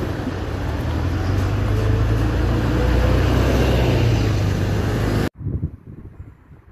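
City bus pulling away from a stop close by: a loud, low engine rumble that grows louder over the first few seconds, with a faint rising whine and motorbikes passing. It cuts off suddenly about five seconds in, leaving faint wind noise on the microphone.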